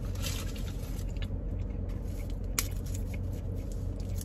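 A person chewing a mouthful of toasted grilled mac and cheese sandwich with mouth closed, faint wet clicks, over a steady low hum. One sharp click about two and a half seconds in.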